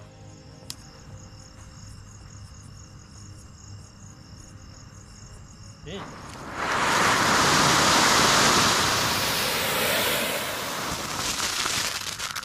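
Flower pot (anar) ground firework lit and erupting about six seconds in: a sudden, loud, steady hiss of a spark fountain that swells quickly, eases slightly and keeps going.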